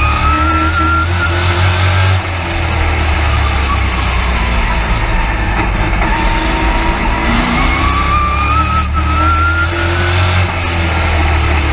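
Race truck engine heard from inside the cab, running hard with its pitch climbing under acceleration. It drops about two seconds in as the throttle comes off, climbs again from about seven seconds in, and eases off again near the end, in the lap-by-lap pattern of straightaways and corners.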